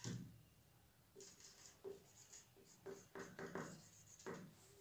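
Dry-erase marker writing on a whiteboard: a run of short, faint strokes as a word is written letter by letter, some with a slight squeak, with a soft knock right at the start.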